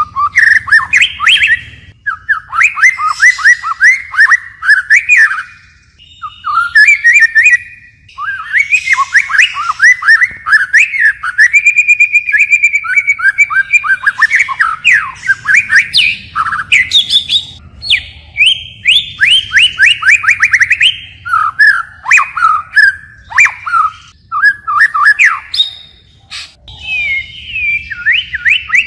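White-rumped shama singing a long, varied song: rapid whistled phrases built from quick falling notes, switching from one phrase to the next with only short pauses, with a steady held whistle about halfway through and some sharp clicking notes.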